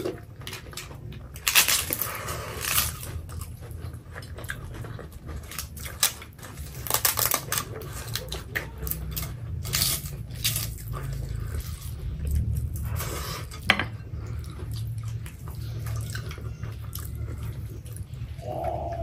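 Close-miked eating by hand: chewing and lip smacking, with fingers squishing rice into curry on plates in many short wet clicks. About ten seconds in there is a brief pour as food is tipped from a bowl onto a plate.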